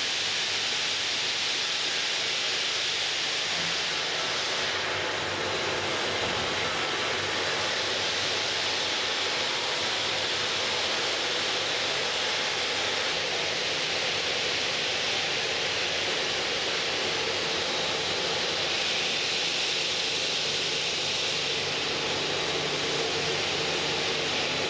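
Granite block cutting machine running and cutting stone: a steady hiss with a faint hum and tone beneath it.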